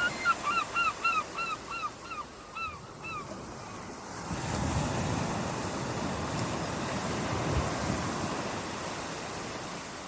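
Sea surf washing in. A bird gives a quick run of about a dozen short calls over the first three seconds, fading as it goes. About four seconds in, a wave surges up and then slowly subsides.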